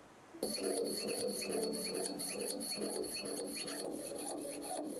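Jeweller's piercing saw cutting through a brass watch bridge, the fine blade rasping back and forth at about three strokes a second. It starts about half a second in, with a thin high ring over the strokes until about four seconds in.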